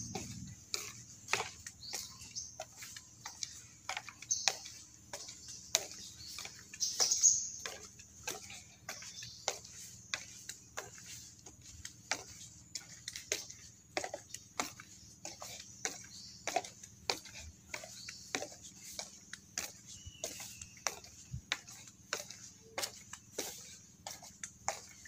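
Footsteps on the wooden planks of a boardwalk, about two steps a second, over a steady high-pitched singing of tikarol that swells briefly around four and seven seconds in.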